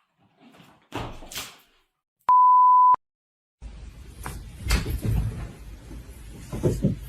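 A single steady electronic beep at one pitch, lasting under a second, about two seconds in. It is followed by a stretch of knocks and thumps.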